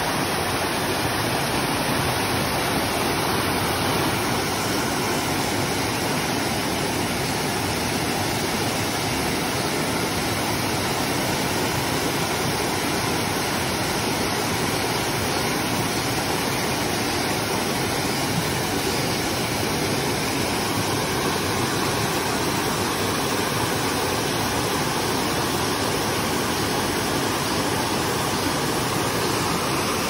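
Rain-swollen stream rushing steadily over a series of small stone cascades.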